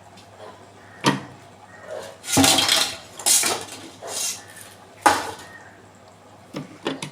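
Knocks and clatter from handling a mixer grinder's onion-chopper attachment: a string of separate sharp knocks, with a louder rattling stretch a couple of seconds in.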